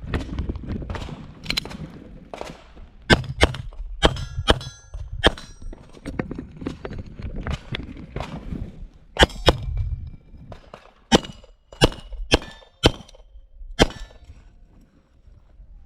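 Gunfire on a shooting course, with steel targets ringing when the rounds hit them. The shots come singly and in quick strings with pauses between, and a run of evenly spaced shots near the end.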